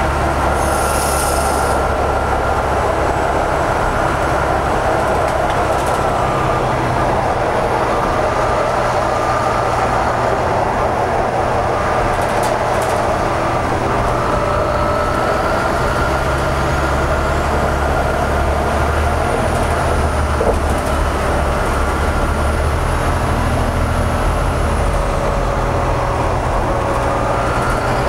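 Steady, loud running noise inside a New Flyer DE60LF hybrid articulated bus under way, from its Caterpillar C9 diesel and GM-Allison EP50 hybrid drive. A faint high whine rises and falls in the second half, and a short hiss comes about a second in.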